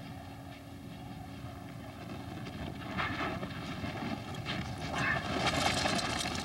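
Wind rushing over the microphone with a steady low hum underneath, the rushing growing louder from about halfway and loudest near the end.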